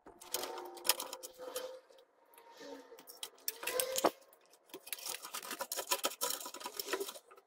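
Cables and plastic connectors being handled inside a metal desktop PC case: a SATA cable plugged into a drive and braided power-supply leads pushed into place, giving scattered clicks and rustling, with a dense run of clicks near the end.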